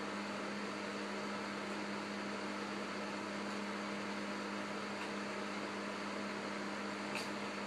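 A steady low hum over an even hiss, with a single faint click about seven seconds in.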